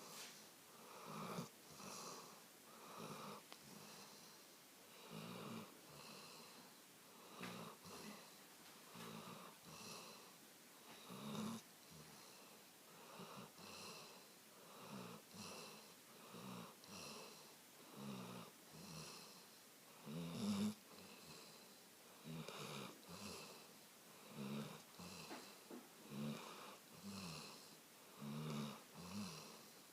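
A Labrador retriever snoring softly in her sleep: a regular run of short snoring breaths, about one a second, with a couple of louder ones in the middle.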